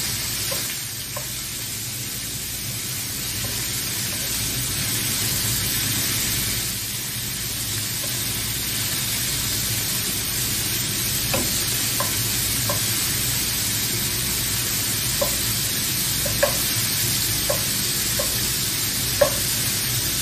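Chicken strips sizzling in hot oil in a frying pan while being stirred with a wooden spoon: a steady frying hiss, with scattered light clicks in the second half and one sharper one near the end.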